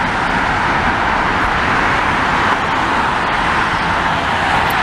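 Steady road and wind noise from a car moving at highway speed.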